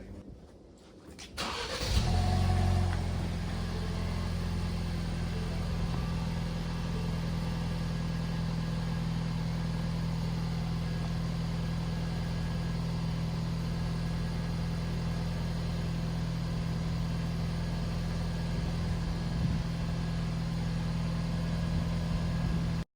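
A 2022 Ford Bronco's engine starting about a second and a half in, flaring briefly, then settling into a steady idle.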